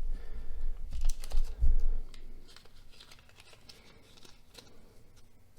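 Light clicks and taps of small knife parts and hardware being handled on a work surface, with a few low bumps in the first two seconds and fainter scattered ticks after.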